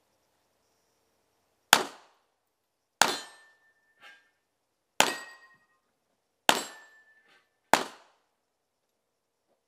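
Five shots from an IMBEL pistol, fired singly at an uneven pace about one to two seconds apart. Several are followed by a brief metallic ring, and a fainter metallic clink comes between the second and third shots.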